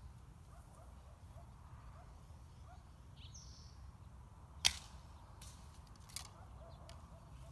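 English longbow of about 50 lb draw loosed once, a little over halfway through: a single sharp snap of the bowstring on release. About a second and a half later comes a fainter knock.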